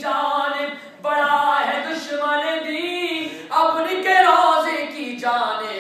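Unaccompanied Urdu devotional recitation: a man's voice singing long, held, gliding phrases without any instruments, with short breaths between the lines.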